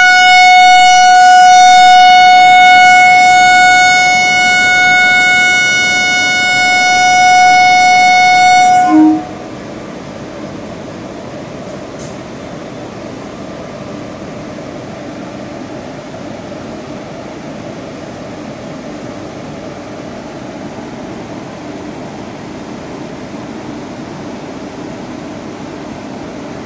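Indian Railways electric locomotive horn sounding one long, loud, steady note as the train readies to depart on a yellow signal; it cuts off about nine seconds in. After that there is only a steady low background noise.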